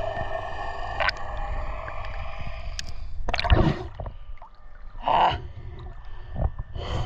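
Muffled underwater noise with steady humming tones from a submerged action camera. About three seconds in there is a loud splash as the camera breaks the surface of the river, followed by a couple of short splashy bursts of water movement.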